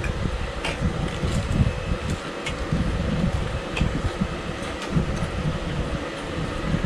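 Steady low rumbling background noise with a few scattered light clicks of spoons and forks on plates.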